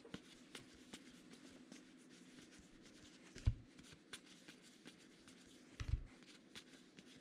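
Baseball trading cards being handled: faint rubbing and flicking of cards sliding against each other, with two soft thumps about three and a half and six seconds in. A faint steady hum runs underneath.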